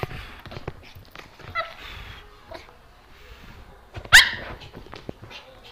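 Small dog giving short, high-pitched play yips, each dropping in pitch: a quieter one about a second and a half in, a faint one a second later, and one loud, sharp yip about four seconds in.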